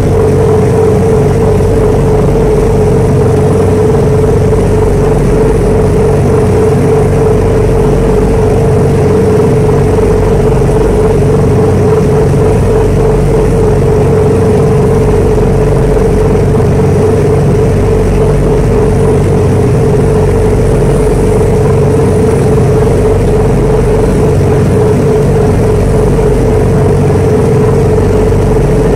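Passenger ferry's engine running steadily at cruising speed: a loud, unchanging drone with a strong steady tone, over the rush of the churning wake.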